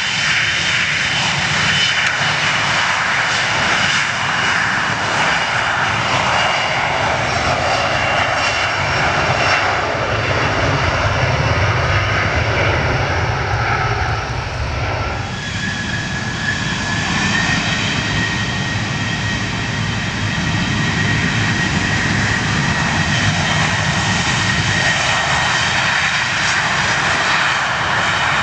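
Jet airliner engines at takeoff power on the runway, a loud steady roar. About halfway through the sound changes abruptly to a Southwest Boeing 737-700's engines, a high whine that rises briefly and then holds over the roar as it spools up and rolls.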